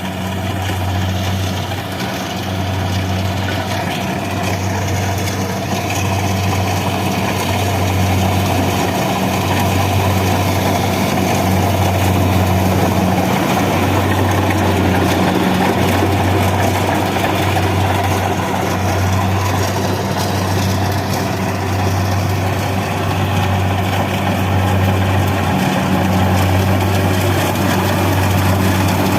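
Kubota rice combine harvester running steadily, its engine a loud low hum that dips briefly every couple of seconds under a dense clatter of machinery.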